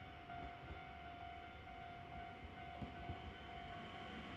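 ED45 electric locomotive giving off a steady whine with overtones over a low rumble, fairly faint and slightly louder near the end.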